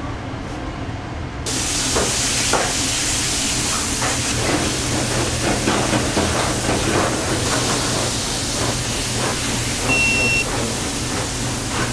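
A hot griddle starts sizzling suddenly about a second and a half in, a loud, even hiss that keeps on, with scrapes and knocks of a spatula over it. A short beep sounds near the end.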